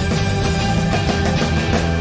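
Live rock band playing an instrumental passage: hollow-body electric guitar over bass and drums, with no vocals.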